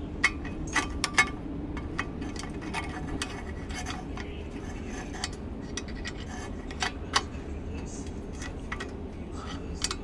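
Metal gear-case parts and hand tools clicking, clinking and scraping as the outboard's lower-unit gears are worked into place. There are several sharp clinks in the first second and a half and a few more about seven seconds in, over a steady low hum.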